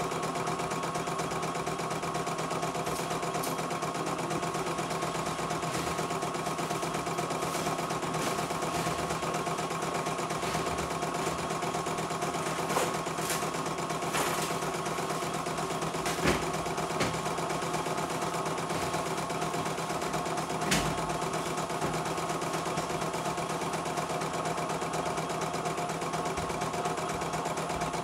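CNY E900 portable embroidery machine stitching out a design: the needle runs at a fast, steady rate with a constant mechanical hum as the embroidery arm moves the hoop. A few sharper clicks come in the middle.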